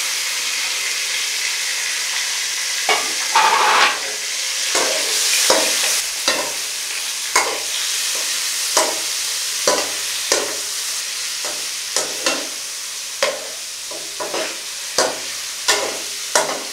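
Chicken pieces sizzling in hot ghee with cumin seeds as they are browned in a metal kadhai. A slotted metal spoon stirs them, knocking and scraping against the pan roughly once a second over a steady frying hiss.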